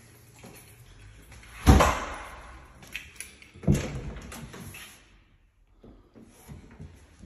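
Wooden kitchen cupboard doors being opened and knocked shut: two loud knocks about two seconds apart, with a lighter click between them.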